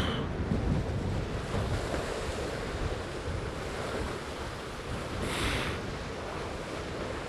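Wind buffeting the microphone over water rushing past a Tornado catamaran's hulls, with a brief hiss of spray about five seconds in.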